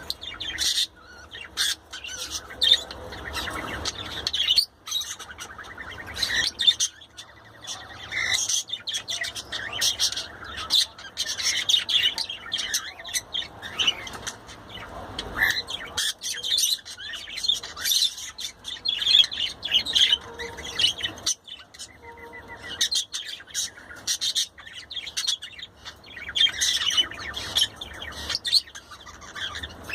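Pet budgerigar chattering: a rapid, continuous run of short high-pitched chirps and squawks, with a couple of brief pauses.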